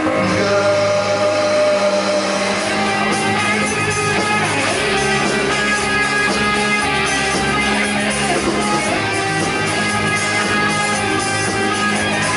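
Live rock band playing: electric guitars over bass guitar and a drum kit, through stage amplifiers.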